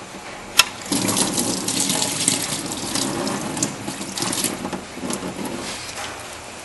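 Antifreeze draining in a stream from the water pump's lower radiator hose outlet and splashing into a bucket. It starts about a second in and eases near the end. A single sharp click comes just before the flow starts.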